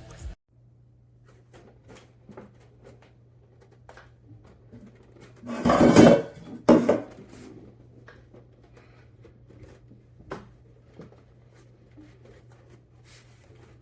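Scattered clicks and knocks of metal monitor-arm parts being handled, with a louder clattering rattle in two bursts about six seconds in and a single sharp knock near ten seconds.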